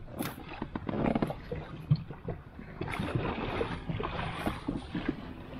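Knocks and scuffs of people moving about in a small dinghy at the shore, then a rushing noise starting about three seconds in.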